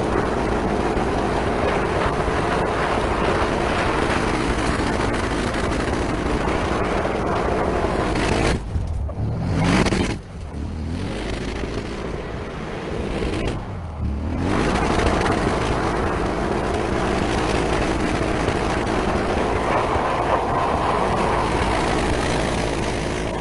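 Audi RS6 Avant's twin-turbo V8 revving hard as the car drifts on loose dirt, with spinning tyres and spraying gravel making a dense hiss. The hiss drops away briefly twice, about nine and fourteen seconds in, and a rev rises sharply at the first break.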